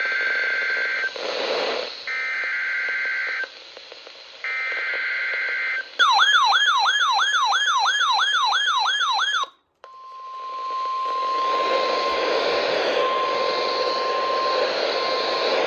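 NOAA Weather Radio emergency alert sequence. It opens with three short bursts of the screeching SAME digital header, one every two seconds or so. Then comes a loud warbling alarm tone sweeping up and down about twice a second for three and a half seconds. After a brief drop-out, the steady 1050 Hz warning alarm tone plays over radio hiss, announcing a new severe thunderstorm warning.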